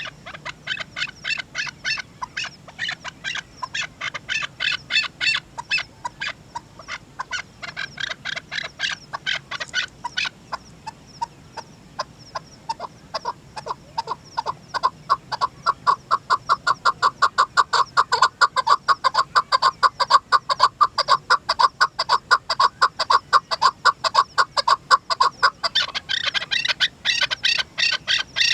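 Chukar partridge calling: a long, rapid series of repeated clucking notes, about four a second. The notes are higher and thinner for the first ten seconds, then lower and louder from about halfway, and turn higher again near the end.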